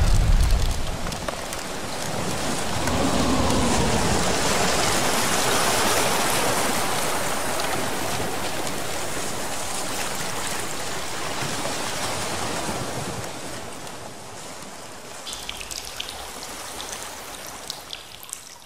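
Intro sound effect of rushing, spraying water: a loud steady hiss with a low rumble at the start, fading down over the last few seconds.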